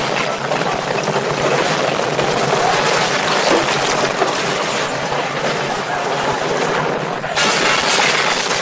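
Film sound effects of a giant statue toppling: a dense, continuous rush of rumbling and crumbling debris noise, with a sudden louder burst about seven seconds in.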